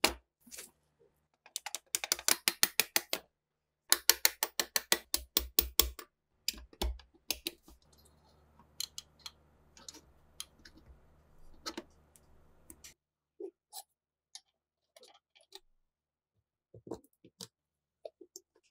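Two quick runs of sharp metal clicks, about eight to ten a second, in the first six seconds, then scattered single clicks and taps: a screwdriver working at the rusted pins and spring of a PPS submachine gun receiver during disassembly.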